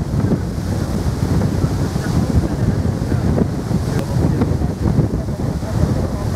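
Strong wind buffeting the microphone, an uneven low rumble that masks most other sound.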